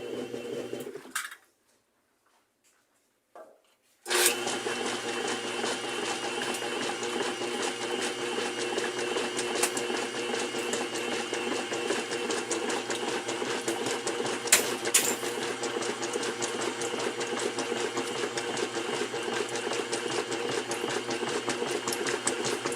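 General Electric top-load washing machine running its wash (agitate) cycle, with a steady motor and transmission hum, after its tub seal, bearings and drive belt have been replaced. The sound cuts to near silence for about three seconds near the start, then the steady running resumes, with two sharp clicks about midway.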